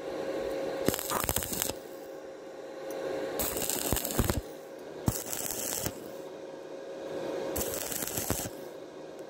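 Stick welding arc crackling and sizzling in short bursts, about four times, each under a second with gaps of about a second between. The welder strikes and breaks the arc over and over, a stop-start technique that keeps heat down on thin-walled tube. A steady low hum runs underneath.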